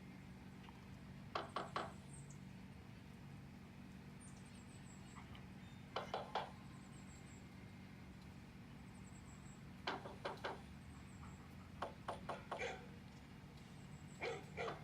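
Knocking in quick groups of about three raps, repeating every few seconds, over a steady low hum.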